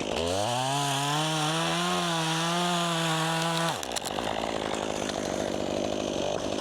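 Two-stroke chainsaw revving up to full throttle and holding a steady high pitch, then dropping into the wood about four seconds in and running rougher under load as it cuts a notch.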